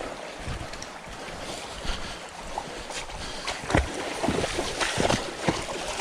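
Creek water running, with knocks and splashes of footsteps crossing it in the second half.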